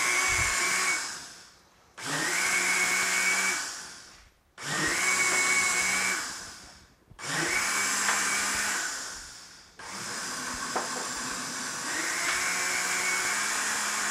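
Black & Decker blender pulsed four times, each burst spinning up sharply and winding down over about a second, then running without stopping for the last few seconds, blending a full jar of milk mixture.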